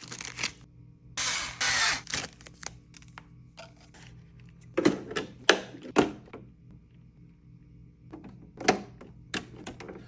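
Packaging and parts being handled: a short rustle about a second in, then scattered clicks and thunks near the middle and again near the end, over a faint steady hum.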